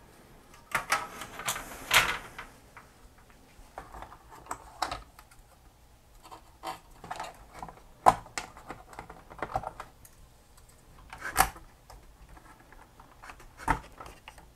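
Plastic and metal parts of an Xbox One S being handled during disassembly: scattered clicks, knocks and light rattles as the hard-drive bracket and plastic shrouds are lifted out. The loudest knocks come about a second in, near the middle and near the end.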